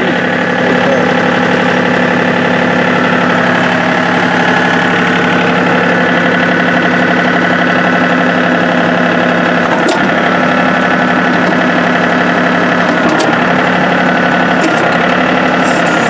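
John Deere tractor's engine running steadily in park, with a few faint clicks about ten and thirteen seconds in.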